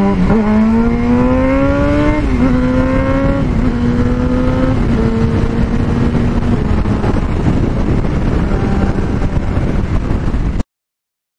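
Yamaha FZ1's inline-four engine accelerating hard through the gears: its pitch climbs and drops back at each of three or four upshifts. The engine then settles into a steady cruise under a growing rush of wind on the helmet microphone. The sound cuts off abruptly near the end.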